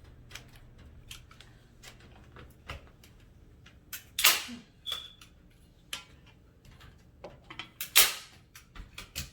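Staple gun firing staples through chicken wire into a wooden frame: two loud snaps about four seconds apart, with lighter clicks and taps between.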